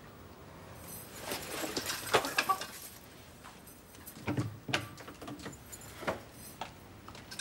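Footsteps and clothing rustle with light clicks and knocks, and a sharp click of a door being handled about six seconds in.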